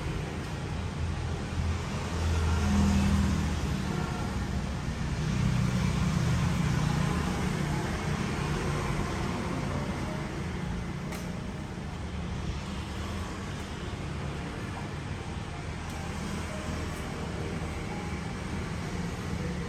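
Motor vehicle traffic noise: a steady low engine hum with road noise, swelling twice in the first half as vehicles pass or accelerate.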